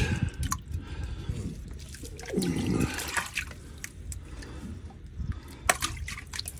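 Water sloshing and dripping. A brief vocal sound comes about two and a half seconds in, and a few sharp knocks near the end.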